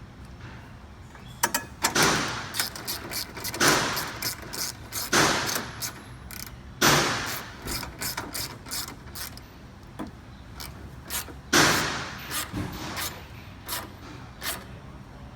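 Hand ratchet clicking in repeated runs of strokes as a 10 mm fender bolt is driven back in.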